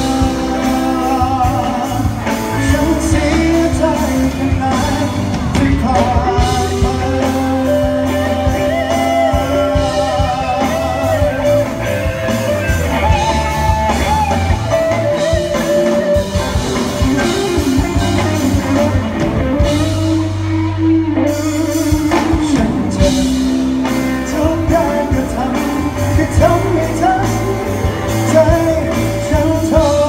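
Live band playing a Thai pop song: electric and acoustic guitars, keyboard and bass under a male lead singer.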